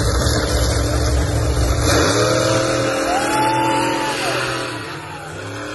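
Monster truck engine running under heavy throttle, revving up with a rising whine about two seconds in, then easing off near the end.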